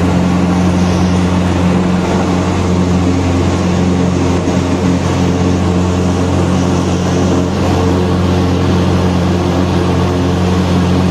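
Light single-engine aircraft's engine and propeller running, heard from inside the cabin as a steady, loud drone with a low pitched hum.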